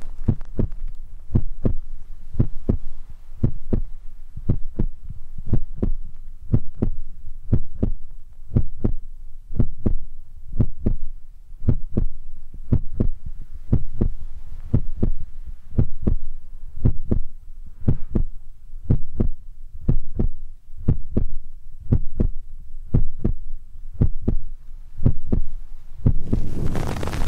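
Soft, low thumps in a steady, heartbeat-like rhythm of about two a second. About a second before the end a steady hiss of noise comes in.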